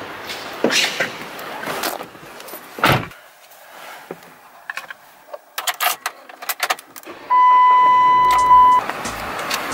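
Handling noises and a run of small sharp clicks, then a loud, steady, high electronic beep lasting about a second and a half.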